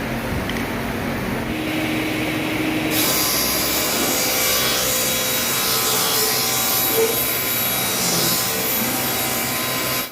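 A tool working wood: a steady rasping hiss that sets in about three seconds in.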